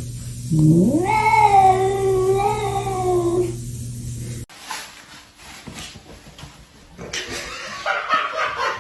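A cat yowling: one long drawn-out call of about three seconds that rises in pitch at the start and then holds. After it, quieter rustling and clicking.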